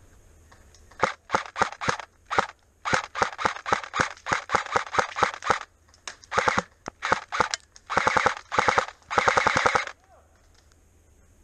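Airsoft rifle firing, first in quick single shots and short strings, then in longer rapid full-auto bursts, stopping about a second before the end.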